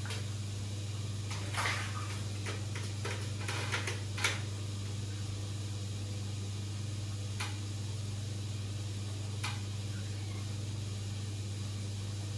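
Steady low hum of running aquarium equipment, with a few light clicks and knocks, most of them bunched between about one and a half and four seconds in and two more later.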